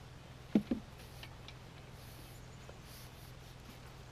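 Faint handling noise: two soft knocks a little over half a second in, then a few light ticks, over a steady low hum, as a rope is tied onto a level.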